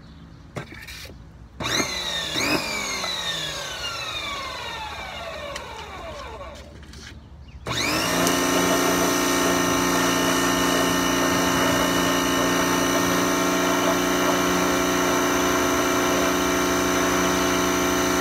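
Pressure washer motor spinning up briefly twice and coasting down in a long falling whine, then starting abruptly about eight seconds in and running steadily while water sprays on the car's wheel.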